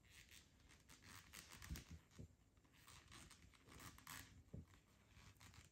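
Faint rustling and scratching of thick T-shirt yarn as it is worked with a small crochet hook and pulled through stitches, with a few soft handling bumps.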